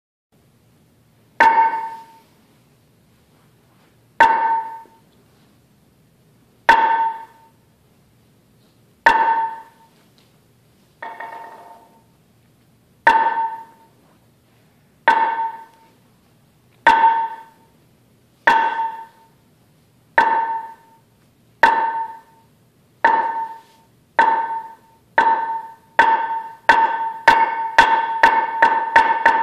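Wooden han (Zen sounding board) struck with a mallet: single clear, pitched knocks about two and a half seconds apart. They come faster and faster into a quick roll near the end, the accelerating pattern that calls practitioners to the meditation hall.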